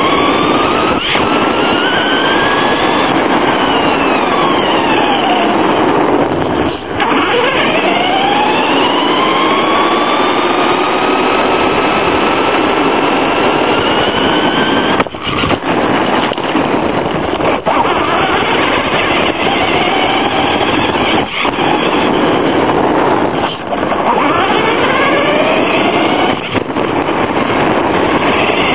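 Traxxas Stampede VXL's brushless electric motor whining up and down in pitch as the truck speeds up and slows again and again, over a loud rushing noise from the drivetrain and tyres, picked up by a camera mounted on the truck itself. The noise dips briefly a few times.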